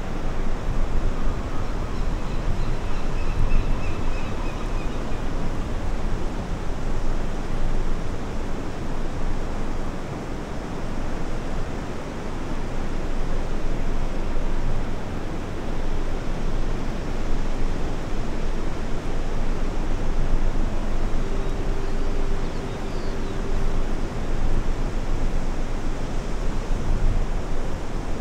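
Steady wash of surf breaking on an ocean beach, swelling and easing slowly, with wind rumbling on the microphone.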